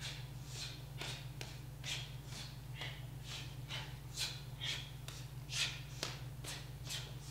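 Short, sharp hissing breaths, about two a second in an uneven rhythm, over a low steady hum.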